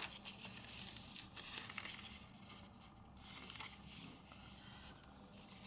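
A square sheet of origami paper being handled and folded by hand, rustling and crinkling irregularly as it is flipped and creased along its diagonals. It is quieter for a moment in the middle.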